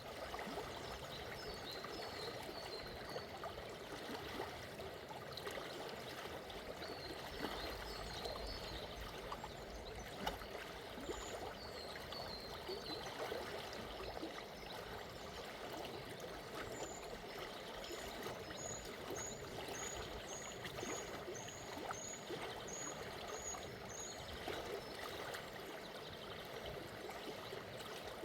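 Water of a calm, shallow river flowing steadily with a gentle bubbling rush. Small birds chirp over it in short quick runs, with a longer run of about a dozen repeated high notes in the second half.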